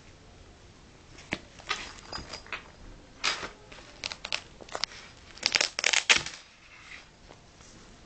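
A small fabric sports bag being handled: an irregular run of rustles, crinkles and sharp clicks, densest and loudest about five to six seconds in.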